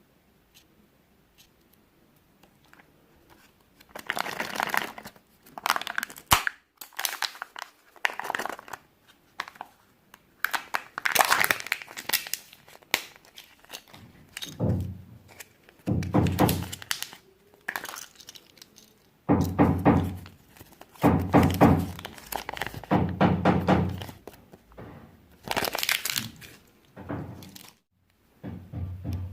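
Kinder Surprise eggs being unwrapped and opened: foil wrappers crinkling and tearing, and plastic toy capsules cracking and knocking. The sounds come in bursts of a second or two with short pauses, starting about four seconds in.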